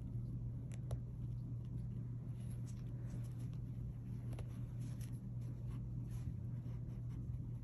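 Faint rustles and soft scratches of hands working a needle and thread through a crocheted plush toy and satin ribbon, over a steady low hum.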